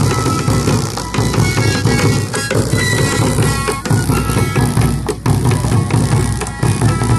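Traditional Andean folk music: large wooden double-headed drums are beaten in a steady rhythm while long end-blown pipes play short, held high notes over them.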